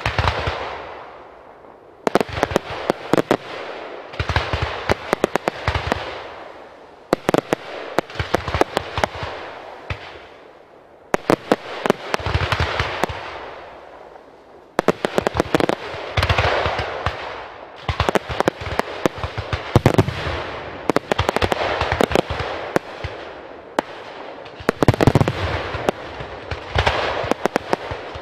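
Aerial fireworks display: volleys of sharp bangs and crackles, a fresh salvo every two to three seconds, each dying away before the next.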